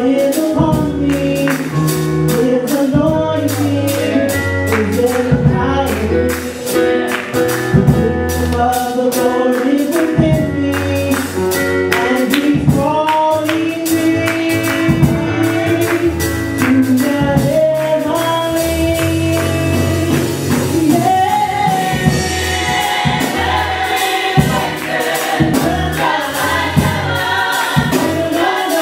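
Gospel music: a choir singing over a band with bass and a steady beat of percussion strokes.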